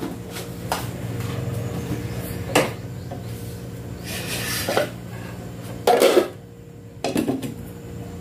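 Cookware clinking: a few sharp metal knocks as a glass pot lid with a steel rim is handled and set onto a stainless-steel cooking pot, the loudest about six seconds in. A steady low hum runs underneath.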